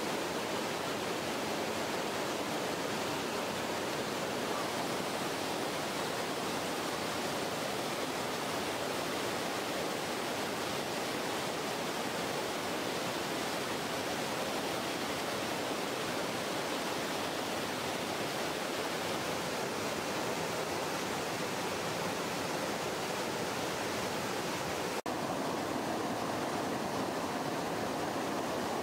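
Steady rushing of river water, an even hiss with no separate splashes. About 25 seconds in there is a brief dropout, after which the rush sounds deeper and duller.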